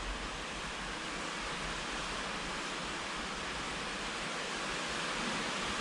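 Steady, even hiss of background noise, with no distinct events.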